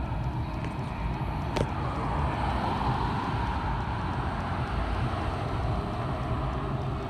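Street traffic: a steady low rumble of engines and tyres, swelling as a pickup truck drives past a few seconds in and then easing off. A single sharp click sounds about a second and a half in.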